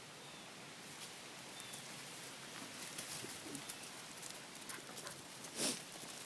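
Faint bird chirps over a steady outdoor background hiss, with scattered light clicks and one brief, louder burst of noise near the end.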